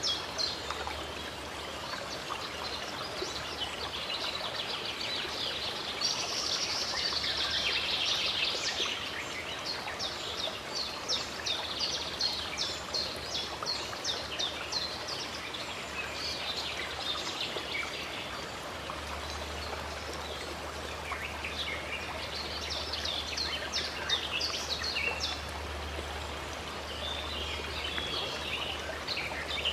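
Running stream water flowing steadily, with many small birds singing and chirping over it; the birdsong thickens into a busy warble about six seconds in and again near the end.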